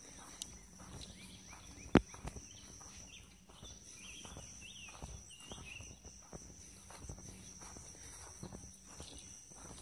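Footsteps walking at an even pace outdoors, with small birds chirping and a steady high-pitched insect-like whine behind them. A single sharp knock about two seconds in is the loudest sound.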